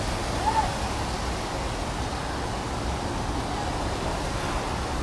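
Steady outdoor background noise, a low rumble with an even hiss over it, with one short high note about half a second in.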